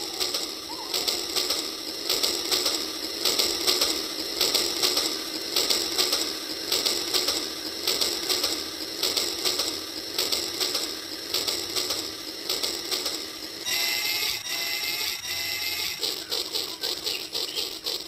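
Battery-powered toy train running on plastic track: the small motor and gearbox whirr and the wheels click and rattle in a rapid, uneven stream. A few short wavering tones come in about three-quarters of the way through.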